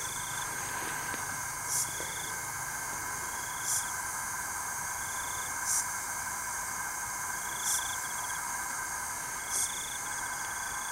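Steady night insect chorus, with a short high-pitched buzzing call repeating about every two seconds and a short chirp in between.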